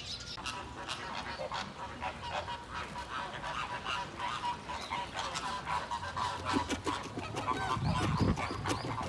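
A large flock of flamingos honking, many short goose-like calls overlapping one another.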